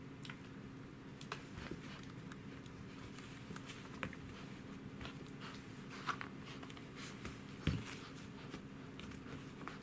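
Corgi puppy chewing and gnawing a canvas-and-rope frisbee toy: scattered soft clicks and rustles as it bites and shifts its grip. One louder thump comes a little before the end.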